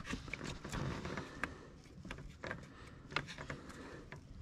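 Scattered faint plastic clicks and light knocks from hands working the downstream oxygen sensor's wiring connector and its clip, seating the plug.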